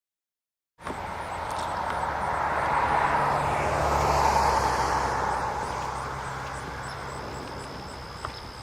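Engine noise that cuts in suddenly about a second in, swells for a few seconds and then slowly fades, as something with an engine passes by.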